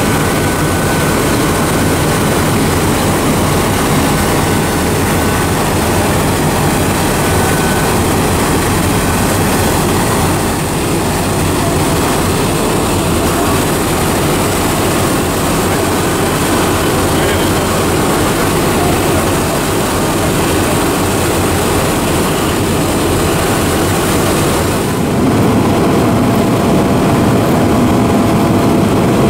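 Fire engine's diesel engine running steadily in a loud, even drone while it stands hooked to a hydrant. About 25 seconds in the sound changes to another fire engine idling close by, a little louder and deeper.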